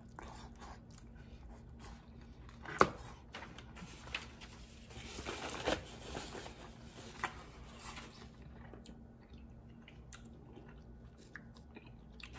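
A person chewing dim sum chicken feet close to the microphone: soft, irregular mouth noises with a few sharp clicks, the loudest a little under three seconds in.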